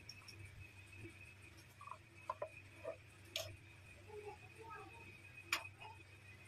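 Quiet kitchen room tone: a low steady hum and a faint steady high whine, with a few light clicks scattered through it, the sharpest about three and a half and five and a half seconds in.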